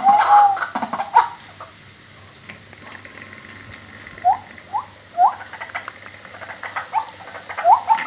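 White-breasted waterhen calling: a short arched note at the start, then, after a lull, short upward-sweeping notes a few at a time, coming more often near the end.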